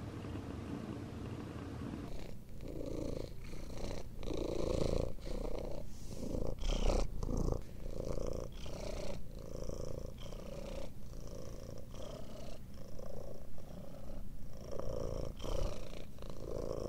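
A domestic cat purring close to the microphone, the purr pulsing in an even rhythm of roughly two beats a second, starting about two seconds in.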